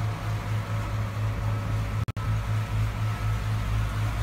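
Steady low mechanical hum from a catamaran's onboard machinery, heard inside the cabin under a light hiss. It cuts out for an instant about two seconds in.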